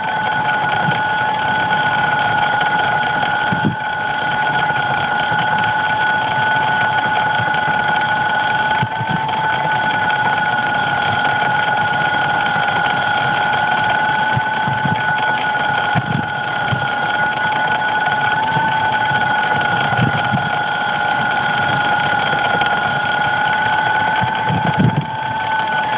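DJI Phantom quadcopter's electric motors whining steadily after a crash, two held tones over a hiss, with occasional soft low knocks.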